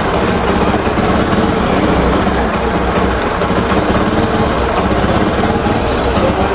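Bajaj Discovery 125 motorcycle's single-cylinder four-stroke engine running with a misfire, not revving cleanly but breaking up unevenly. The fault is a loose connector on the CDI unit's wiring.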